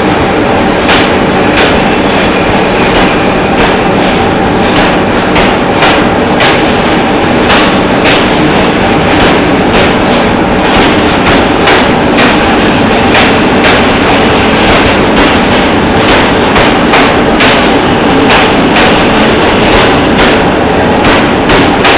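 Double-deck passenger coaches rolling past a station platform: a steady, loud rumble of the train, with its wheels clicking over rail joints several times a second.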